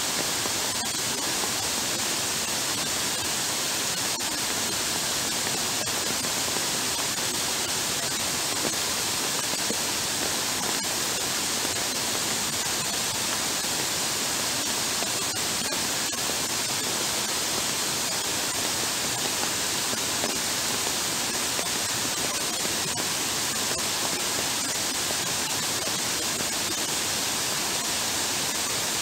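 Heavy rain falling steadily onto a flooded path: a dense, even hiss.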